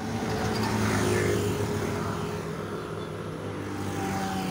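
Motorbike engines passing nearby, swelling to their loudest about a second in and then easing off.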